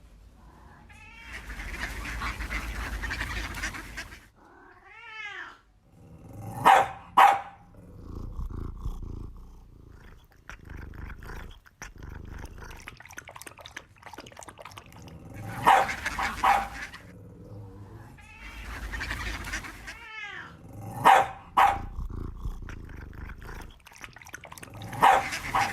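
Animal calls: short, sharp calls, mostly in pairs, come back every few seconds, with a curving call and washes of noise between them.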